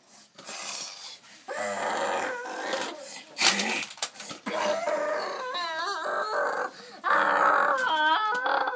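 A child's voice making long, wavering vocal sound effects with no words, several times over.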